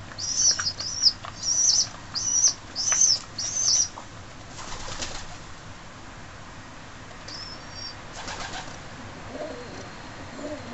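Young feral pigeons (squabs) begging with a run of high, squeaky peeps, about two a second, that stops about four seconds in. Later come two short bursts of wing fluttering and one more peep.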